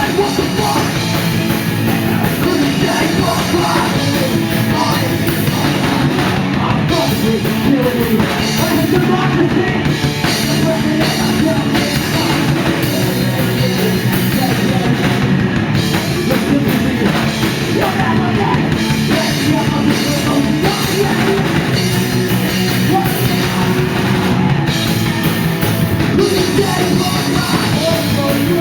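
A punk rock band playing live, loud and continuous, driven by a drum kit.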